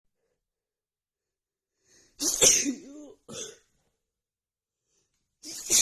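A woman sneezing in a rapid allergy attack: a loud sneeze about two seconds in with a short second burst just after, then the next sneeze starting near the end.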